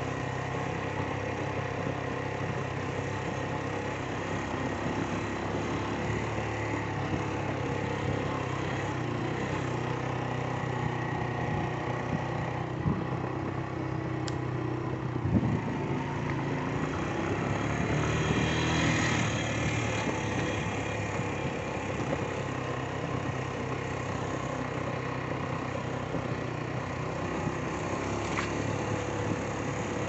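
A motor engine running steadily, with an even low hum throughout and a slight swell about two-thirds of the way in.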